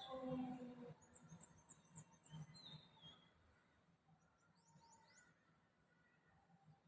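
Faint, distant amplified sound from a loudspeaker trailing off in the first second, then near quiet with small birds chirping in short high runs of notes.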